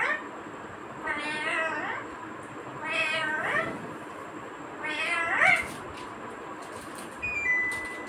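Rose-ringed parakeet calling: a series of drawn-out, meow-like calls that rise in pitch, about one every two seconds.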